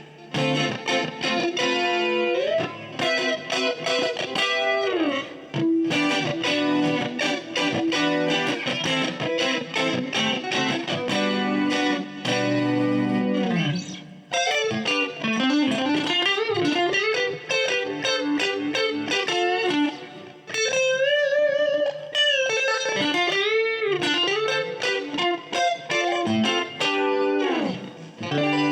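Strat-style electric guitar with an ash body, played with a clean tone: a run of picked single-note lines with string bends and vibrato, pausing briefly about 14 and 20 seconds in.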